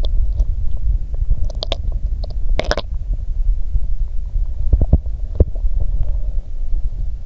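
Stomach gurgling and rumbling, picked up close against the belly: a constant low rumble with clusters of squelchy gurgles, the loudest about two and a half seconds in and another burst about five seconds in. It is the sound of a stomachache during menstrual cramps.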